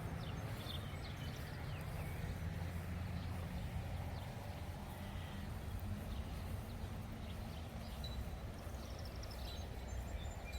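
Outdoor ambience: a steady low rumble, with faint bird chirps now and then.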